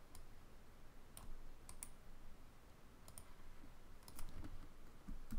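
Faint, scattered clicks of a computer keyboard and mouse at irregular intervals, a few coming closer together near the end.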